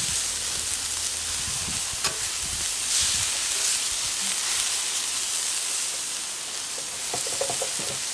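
Beef burger patties and tomato slices sizzling on the hot ground-steel plate of a gas plancha, a steady frying hiss. A few clicks and short scrapes of a metal spatula on the plate, about two seconds in and again near the end.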